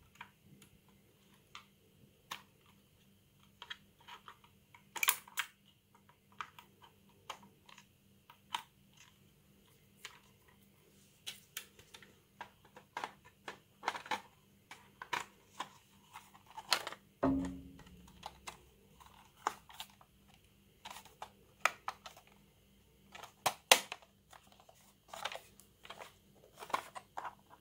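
Irregular plastic clicks and knocks from handling a Brother P-touch PT-H110 label maker: AAA batteries being pressed into the battery compartment and the back cover being snapped on. A short low thud sounds a little past the middle.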